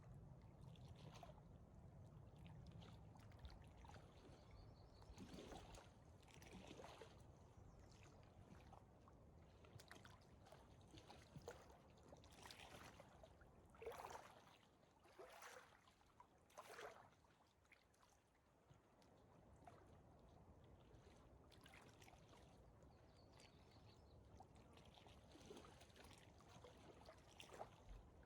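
Faint footsteps crunching on a dirt and gravel hiking trail, one step about every second and a half, over a low steady rumble that fades out about halfway through.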